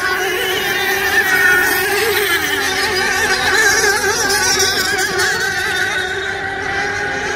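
Several radio-controlled racing boat engines whining together at high revs, their pitches wavering constantly, with one dropping in pitch about two seconds in.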